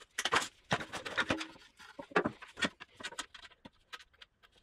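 Irregular clicks, knocks and rattles of a panel and wiring being handled and fitted into a milling machine's electrical cabinet.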